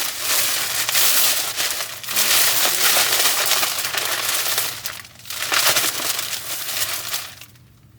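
Shipping packaging crinkling and rustling as parcels are handled and torn open, in two long stretches, fading out shortly before the end.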